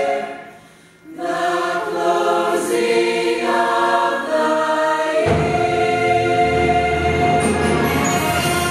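High school choir singing. The voices break off just before a second in, resume, and the sound grows fuller with low notes about five seconds in.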